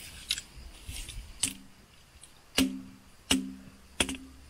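A large conglomerate stone tub being struck four times, each sharp knock followed by a short, low ringing tone as the rock resonates.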